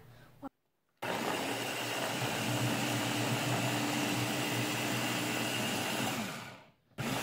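Ninja press-top blender motor running steadily, starting about a second in as its blades churn ice cream and strawberries into a milkshake. Near the end it winds down, falling in pitch.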